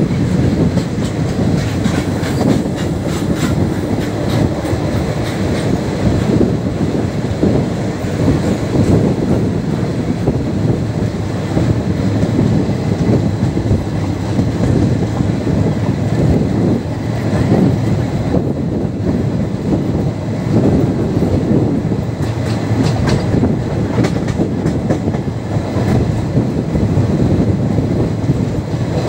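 Indian express train passenger coach running at speed, heard from on board: a steady loud rumble of wheels on track with clickety-clack of the wheels over rail joints.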